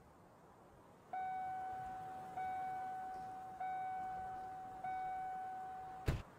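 A car's door-open warning chime dinging four times, a little over a second apart, each ding a single fading tone. Then the door slams shut with one sharp thud, and the chime stops.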